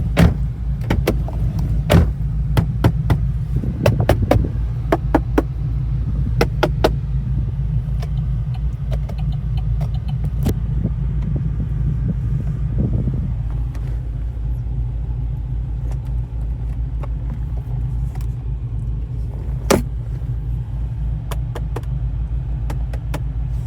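Holden VF Commodore SSV Redline's 6.0-litre V8 idling with a steady, pulsing low rumble; the car shakes at idle, which the owner puts down to its cam. Scattered sharp clicks and taps sound over it, most of them in the first several seconds.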